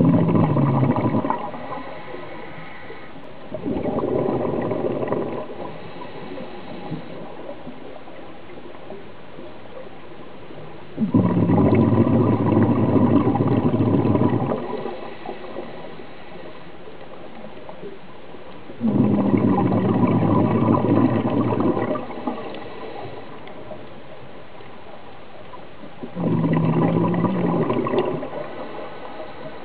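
Scuba diver's exhaled breath bubbling out of the regulator: five gurgling bursts of a few seconds each, about every seven or eight seconds, some starting with a brief low tone, over a steady underwater hiss.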